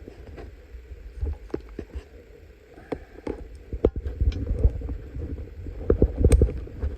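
Plastic clicks and knocks of a Triceratops action figure being handled as its separate tail is fitted on, over a low rumble of handling noise.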